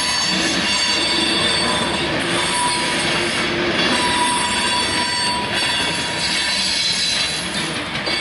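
Freight train of boxcars rolling past at close range: steel wheels running on the rails with a steady noise, and thin, high, steady squealing tones from the wheels.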